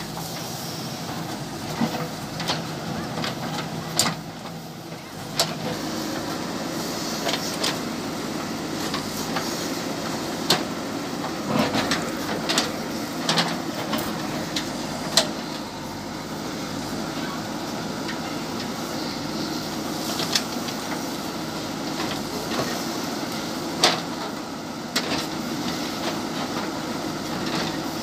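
JCB 3DX backhoe loader's diesel engine running steadily under load as the backhoe digs, with scattered sharp knocks and clanks from the bucket and arm working the earth and stones.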